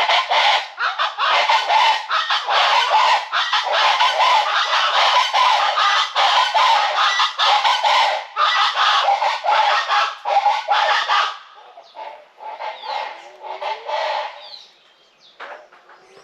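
A flock of wild chicken-like birds calling together in a loud, dense chorus. About eleven seconds in, it thins to scattered, fainter calls that fade away.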